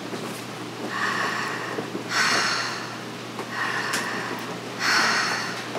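A woman demonstrating conscious connected breathing, breathing audibly in and out through the mouth. There are two rounds, each a softer rushing breath followed by a louder breath that trails off.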